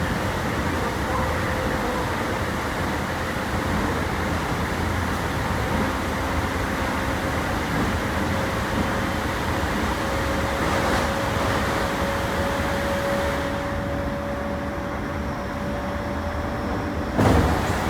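Toei 10-300 series electric train heard from inside the car, running with a steady rumble while a thin traction-motor whine rises slowly in pitch as it gathers speed. A sudden loud knock near the end.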